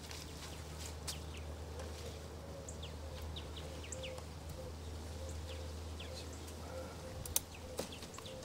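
Outdoor ambience: many short, high, downward chirps scattered over a steady low hum, with two sharp clicks near the end.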